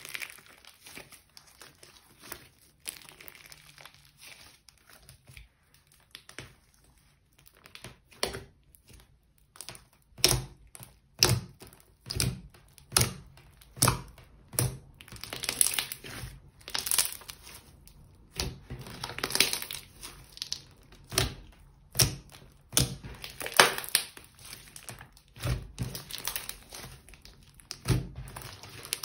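Hands squeezing and pressing a thick slime mixed with clay, making sticky squelching and crackling sounds. It is fairly soft at first; from about ten seconds in comes a run of sharp pops, roughly one a second.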